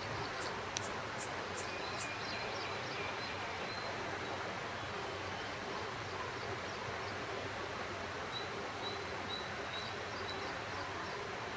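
Steady outdoor background noise under a constant high-pitched whine. A run of five short, sharp chirps or clicks comes in the first two seconds, with faint short bird-like chirps scattered through the rest.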